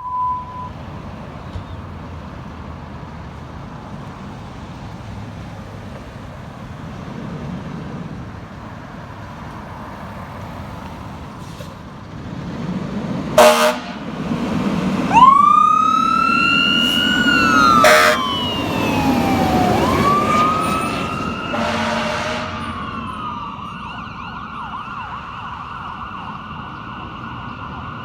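Fire engine on an emergency response. Low engine and road rumble builds, then two short air horn blasts sound about halfway through, a few seconds apart. An electronic siren wails up and down over them and settles into a steadier tone near the end.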